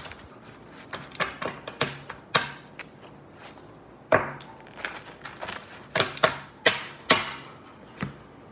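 A string of irregular sharp cracks and clicks close to the microphone, about a dozen over several seconds, some coming in quick pairs.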